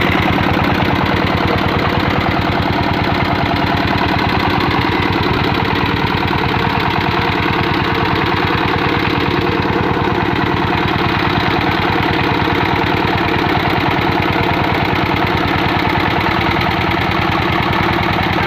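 Single-cylinder 'dompeng' diesel engine idling steadily with an even, rapid chugging beat.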